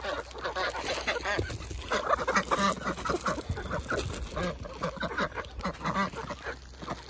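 A flock of chickens and ducks calling over one another in many short, overlapping clucks and quacks as they crowd in to eat scattered watermelon rinds.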